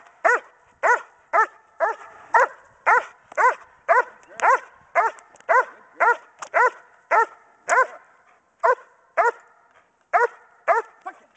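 German Shepherd barking repeatedly at a handler holding a bite sleeve, about two short barks a second in a steady run, with a brief gap just past the middle. This is a bark-and-hold guard bark: the dog barks at the sleeve instead of biting.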